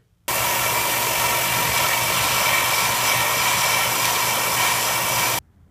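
Ryobi benchtop belt sander running with a hardened steel batarang held against the moving belt: a loud, steady grinding whir. It starts abruptly just after the start and cuts off abruptly near the end.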